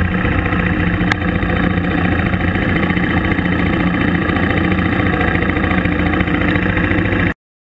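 Dual-sport motorcycle engine running steadily at low speed and idling, with one sharp click about a second in. The sound cuts off suddenly near the end.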